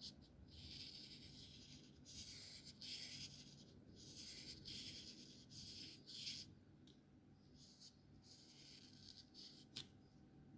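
Alcohol-based felt-tip markers stroking across paper in a run of soft, scratchy strokes, each about a second long with short pauses between them. A single sharp click comes near the end.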